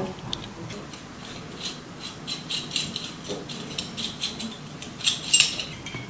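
Metal flexible-conduit coupling being unscrewed and taken apart by hand: light scraping and clicking of the metal parts against each other, with a louder cluster of metallic clicks a little after five seconds in.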